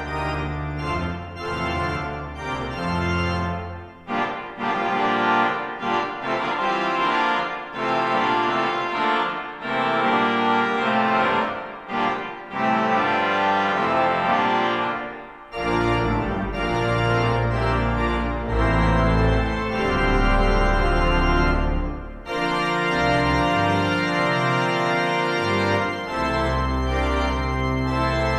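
Large church pipe organ playing sustained full chords, with deep pedal bass notes at the start and again from about halfway, and short breaks between phrases.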